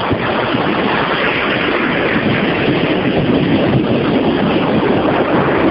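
Ocean surf breaking and washing up a sandy beach, with wind buffeting the camera microphone; a steady noise with no breaks.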